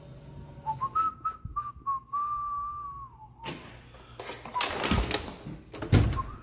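A person whistling one long, slightly wavering note, with a few sharp clicks over it, then the rattle and thuds of a home elevator's door and folding gate being handled, near the end.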